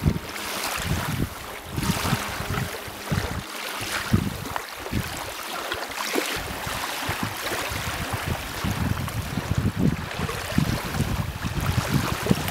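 Wind gusting on the microphone in uneven low buffets, over the wash of small waves lapping on a sandy lake shore.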